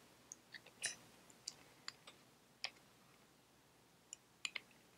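Faint, scattered light clicks and taps of small metal parts being handled at an S&S carburetor float bowl, as a small screw that would not start is taken back out to check it. About ten sharp ticks, irregularly spaced, with a quick cluster near the end.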